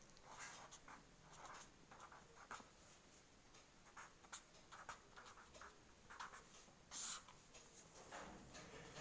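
Faint scratching of handwriting, a series of short writing strokes, with one louder, sharper stroke about seven seconds in.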